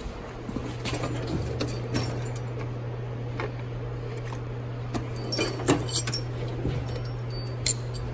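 Steel sockets clinking as a hand picks through a socket rail and a tool chest drawer, with a few sharp clinks about five and a half to six seconds in and one more near the end, over a steady low hum.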